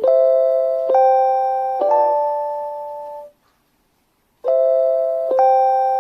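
JR Hokkaido station guide chime for visually impaired passengers: a short phrase of bell-like electronic chime notes struck a little under a second apart, each ringing and fading. About halfway through the sound cuts off suddenly, and after about a second of silence the phrase starts over.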